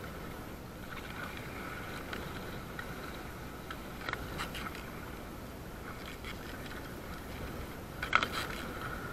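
Choppy sea water sloshing against an inflatable kayak, with splashes of spray hitting the camera about four seconds in and, loudest, about eight seconds in.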